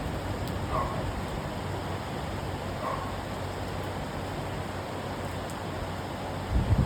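Steady hiss of heavy rain in a thunderstorm, with two faint short calls about a second and three seconds in, and low rumbling bursts starting near the end.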